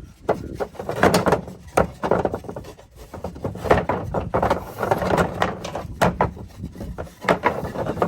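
Pallet-wood boards knocking and clattering as they are handled and lined up for stapling, with wind rumbling on the microphone.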